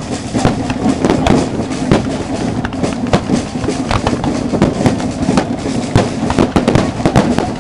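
Firework display going off: a rapid, irregular string of bangs and crackles, several a second, over a continuous noisy background.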